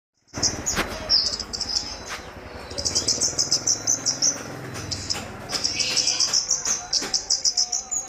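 Caged kemade songbird in full song, calling in rapid, high-pitched chattering trills, burst after burst, with a few sharp clicks among them.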